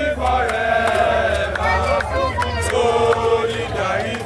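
A crowd chanting together in long, held notes.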